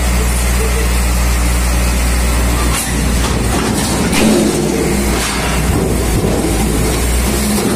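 Heavy machine engine running steadily under a hydraulic orange-peel scrap grapple. About three seconds in, scrap sheet metal clatters and scrapes for a couple of seconds as the grapple bites into the pile, loudest near the middle.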